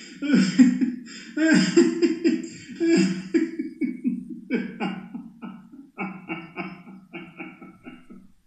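A man laughing hard in loud bursts that break into short, quicker pulses, fading out near the end.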